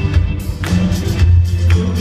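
Live rock band playing amplified music: a heavy bass line under electric guitars and keyboard, with a drum kit keeping the beat.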